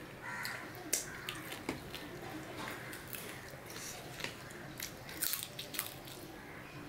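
Close-miked eating sounds: chewing and mouth clicks, with fingers mixing rice on a steel plate. Near the end a chicken bone is bitten.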